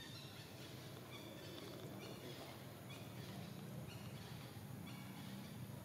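Forest ambience: a bird's short high call repeating about once a second over a low steady rumble.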